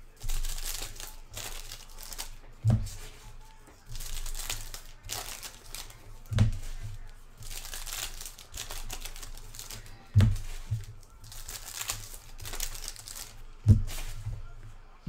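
Foil trading-card pack wrappers being torn open and crinkled by hand, one pack after another. A dull thump comes roughly every three and a half seconds between the rustling.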